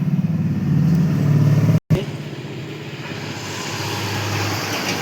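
A motor vehicle engine running steadily as a low hum, with a brief total dropout about two seconds in, after which a lower, even traffic-like rumble continues.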